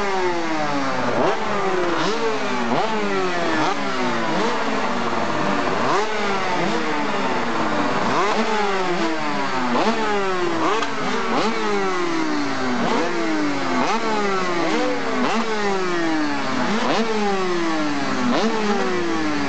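Aprilia 250 GP two-stroke V-twin racing engine being warmed up. The throttle is blipped over and over, so each rev shoots up sharply and then falls back, about once a second.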